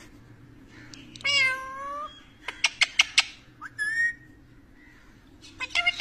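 Rose-ringed parakeet calling: a drawn-out call about a second in, then a quick run of about five sharp short notes, another short call, and rapid repeated chattering notes starting near the end.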